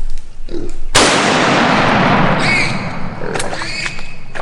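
A single rifle shot about a second in, its blast rolling on and fading over the next second or so, followed by high squeals from a hog.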